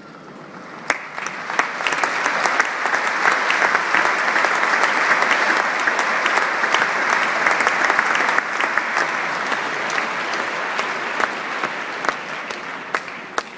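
Stadium crowd applauding, a dense spread of sharp claps that builds up about a second in and tapers off near the end.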